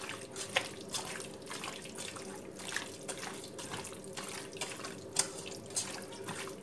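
Raw chicken pieces being mixed by hand in marinade in a stainless steel pot: irregular wet squelches and slaps, with a few sharper clicks.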